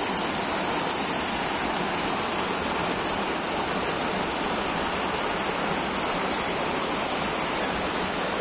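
Waterfall rushing steadily, a constant even roar of falling water with a steady high hiss on top.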